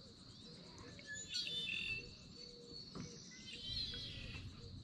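Small birds singing and chirping in two short bursts, about a second in and again past the three-second mark, over a faint steady high tone.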